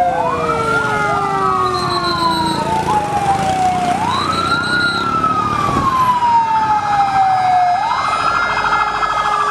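Toy fire engine's electronic siren wailing. Each cycle jumps up quickly and then slides slowly down, repeating about every four seconds, with a few overlapping sweeps in the first couple of seconds.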